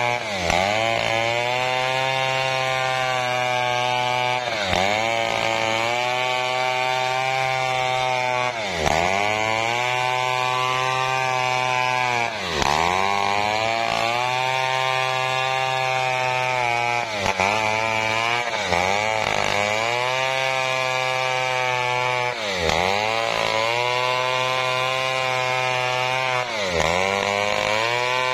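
Chainsaw cutting coconut wood at high revs. Every few seconds its pitch dips sharply as the chain bites, then recovers.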